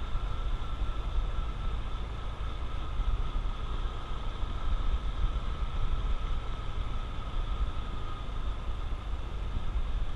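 Honda CT125 Trail's single-cylinder engine running steadily under way, under heavy low wind rumble on the camera microphone, with a steady thin whine throughout.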